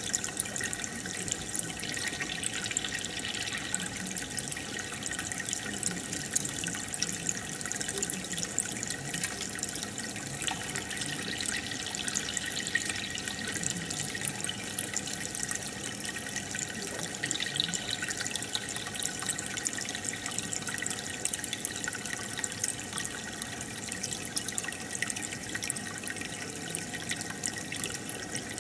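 Aquarium air stone bubbling steadily, a constant fizz of many small bubbles breaking at the water's surface.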